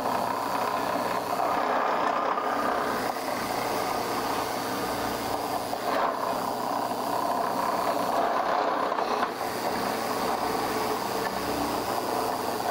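Shopsmith Mark 7 running as a drill press at about 2000 rpm: a steady motor whine as the bit bores angled pocket-screw holes into a wooden board.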